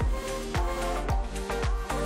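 Background electronic music with a steady beat, about two drum hits a second.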